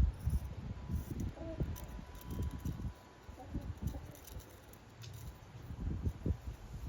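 Wind buffeting the microphone in irregular gusts, a low rumble that rises and falls every second or so.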